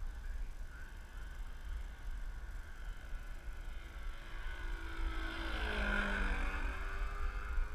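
Radio-controlled Edge profile aerobatic plane making a low fly-by. Its motor's tone grows louder, peaks as the plane passes overhead about six seconds in, then drops in pitch as it moves away.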